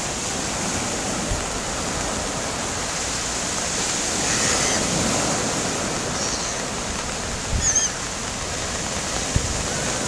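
Small waves breaking and washing up a sandy beach in a steady surf noise. A few short gull calls come through about halfway and again after seven seconds, and a couple of brief low thumps show near the end.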